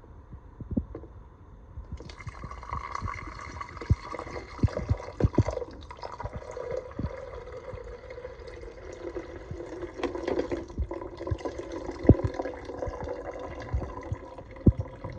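Water pouring into the water reservoir of a Mainstays 12-cup programmable coffee maker, a steady splash starting about two seconds in and running until near the end, with light knocks from handling the plastic.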